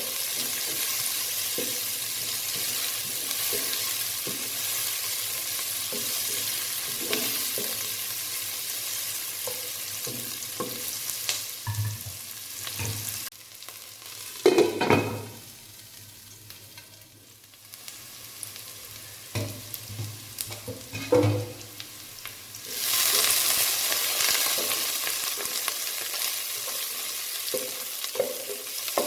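Food frying in hot oil in a pot, sizzling, with a spoon stirring and knocking against the pan. The sizzle drops away for several seconds around the middle, where a few louder knocks stand out, then comes back at full strength.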